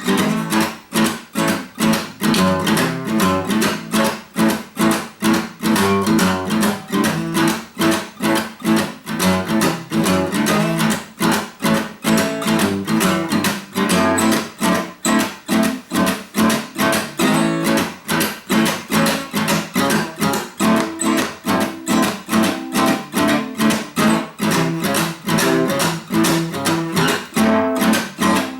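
Acoustic guitar strummed in a steady, even rhythm: an instrumental break in a blues song, with no singing.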